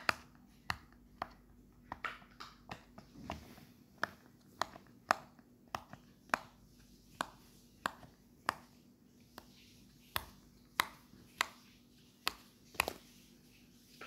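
Silicone pop-it fidget toy bubbles pushed through one at a time by fingers: short, sharp pops at an uneven pace, roughly two a second.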